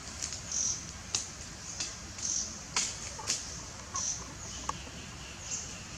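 Scattered short high chirps and clicks with a few brief clucking calls, over a faint steady high hum in the second half.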